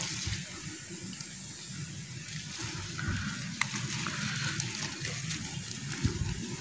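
Water spinach plants rustling as they are handled and picked by hand, with a few sharp clicks.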